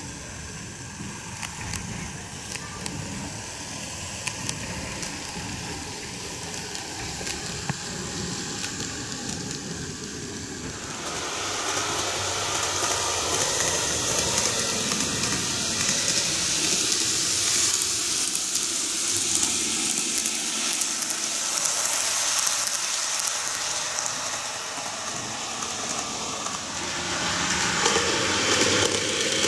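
Greenmax N-gauge Kintetsu 12410 series model train running on TOMIX track: a steady hissing rolling noise with light clicks from the wheels and mechanism. It gets louder about a third of the way in and again near the end as the train comes close.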